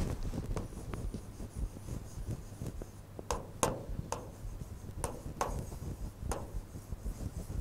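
Chalk writing on a chalkboard: faint scratching strokes, with several sharp taps in the second half as the letters are put down.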